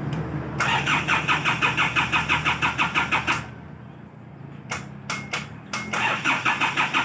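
Isuzu Bighorn's 4JG2 diesel engine being cranked by the starter in two tries of about three seconds each, chugging about five times a second without firing. A few clicks come between the tries. The engine will not start after eight months parked, which the mechanic puts down to a wiring fault: the fuel-pump cut-off is tied to the glow-plug timer relay.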